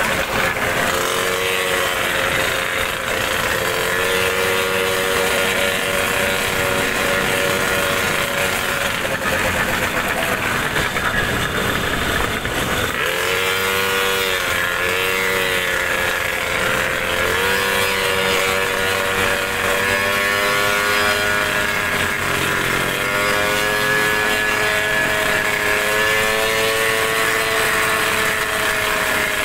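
Small 63cc gas scooter engine running while riding, its pitch rising and falling with the throttle and dipping briefly about halfway through, over a steady rush of wind and wet-road noise.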